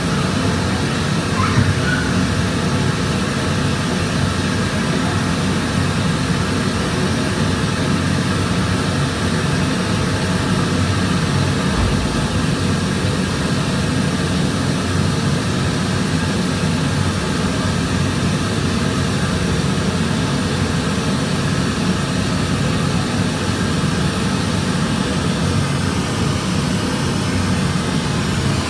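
Steady, loud rush of wind and road noise with a low drone, as heard while travelling on the road.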